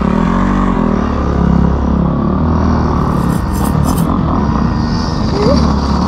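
Dirt bike engine running, its pitch rising and falling as it revs in the first couple of seconds, then holding fairly steady.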